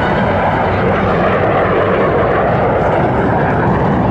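T-33 jet trainer flying past overhead, its single turbojet engine giving a loud, steady rush of jet noise.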